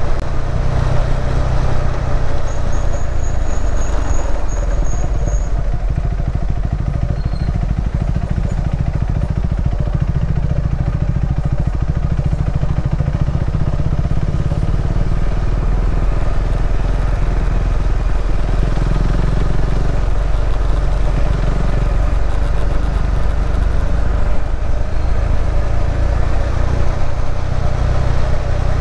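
KTM 390 Adventure's single-cylinder engine running as the motorcycle rides along, fairly steady with small shifts in revs, over a heavy low rumble.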